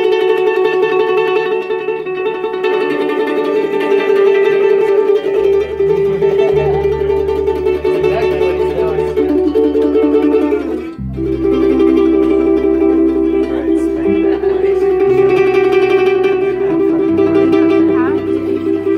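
Acoustic string band playing an instrumental break, a mandolin picking the lead over acoustic guitar, with electric bass notes coming in about five seconds in. There is a brief drop in the music about eleven seconds in.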